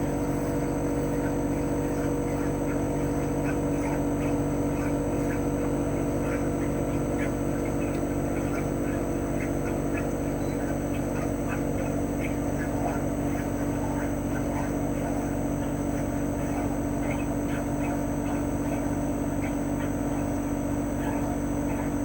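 CHOFU AE-2844PX mini-split outdoor unit running in cooling mode at steady speed. Its GMCC single-rotary inverter compressor gives a steady hum with held tones over the rush of the propeller fan.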